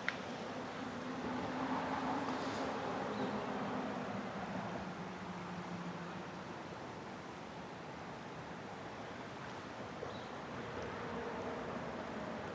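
A distant engine humming low over a steady outdoor hiss of wind and flowing water. The hum fades about halfway through and comes back near the end.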